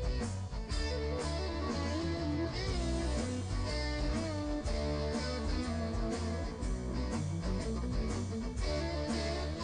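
Background music led by guitar, with a steady bass pulse.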